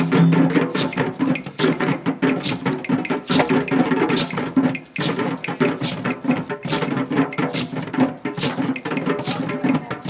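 Djembe hand drumming: a fast, steady run of strikes over the drum's low ringing tone, with a short break about five seconds in.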